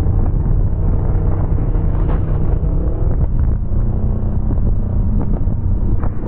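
Loud wind rush on the microphone over a sport bike's engine running steadily at highway speed.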